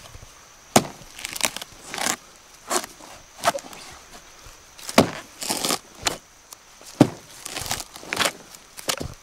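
A hatchet chopping into a rotten palm trunk: about a dozen irregularly spaced wooden strikes, some followed by a brief splintering crackle of the soft, decayed wood.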